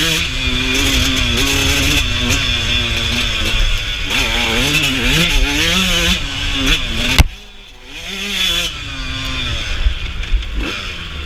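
Suzuki RM125 two-stroke dirt bike engine revving hard, pitch rising and falling as the throttle is worked. About seven seconds in, a sharp knock and the engine drops off suddenly, then picks up again at lower revs. Wind hiss on the microphone.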